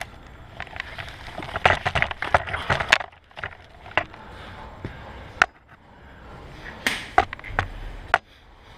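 Irregular sharp knocks and cracks: a dense run of them in the first three seconds, then single ones every second or so.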